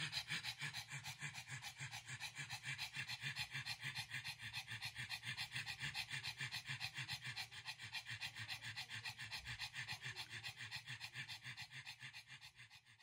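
Pug panting rapidly and noisily through its open mouth, about five breaths a second, fading out near the end.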